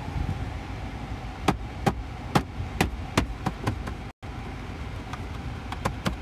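Sharp taps on the heater blower motor of a 2008 Vauxhall Corsa D, starting about one and a half seconds in at roughly two a second, over the steady rush of the blower fan running. The blower is intermittent and tapping around it varies its speed, which the mechanic suspects is a failing fan motor.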